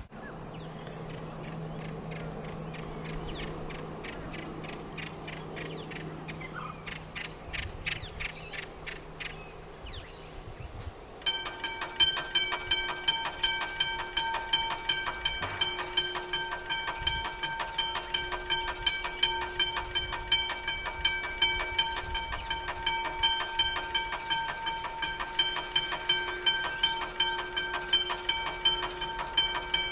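Level crossing warning bell starts ringing suddenly about eleven seconds in and keeps up a fast, evenly repeated metallic ring, set off by the approaching XPT train. Before it there is only a steady high hiss and a low hum.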